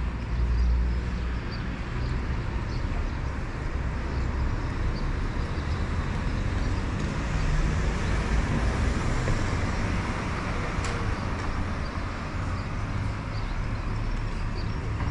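Outdoor street ambience: a steady low rumble with a hiss over it, and faint high bird chirps here and there.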